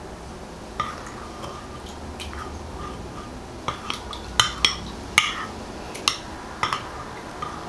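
A spoon stirring honey into lemon juice in a dish, clinking against its sides in about a dozen irregular sharp clicks.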